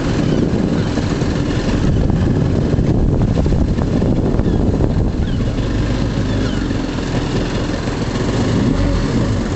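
Steady rumble of a small boat's engine idling, with wind noise on the microphone.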